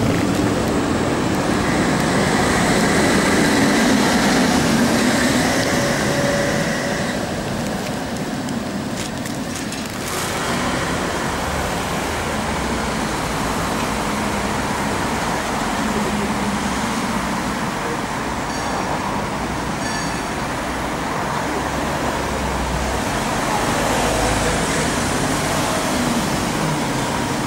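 A Tatra T3 tram running past close by, its motors and wheels on the rails giving a steady hum with whining tones that fade away. About ten seconds in this gives way to steady street traffic noise around trams.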